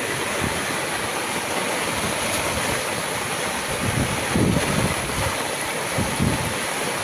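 Heavy rain pouring steadily, a hiss of falling water, with wind buffeting the microphone now and then.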